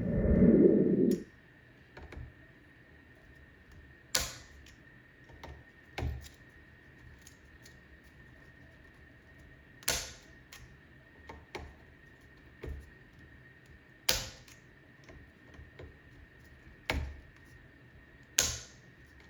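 Torque wrench and hand tools on the rail's mounting screws: sharp clicks at uneven intervals of a few seconds, several of them bright metallic snaps, after a short burst of low handling noise at the start.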